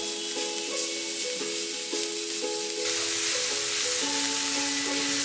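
Chopped onions sizzling in hot oil in a frying pan as a spatula stirs them through the pan. Light background music with plucked notes plays over the frying.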